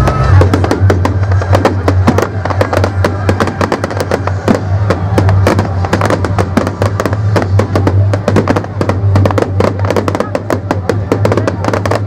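Fireworks display: a dense, continuous crackle of sharp reports and bangs from bursting shells and crackling stars, many a second, with music playing underneath.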